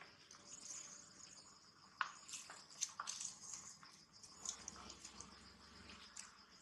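Faint, steady, high-pitched chirring of insects, with several sharp clicks or taps over it, the loudest about two and three seconds in.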